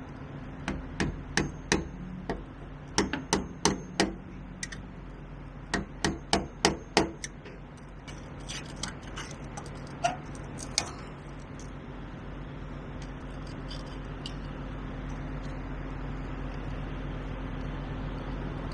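Sharp metal-on-metal taps from a screwdriver working at a trailer marker-light housing, in three quick runs of four or five taps, then a few scattered clicks. A steady low hum runs underneath and grows a little louder near the end.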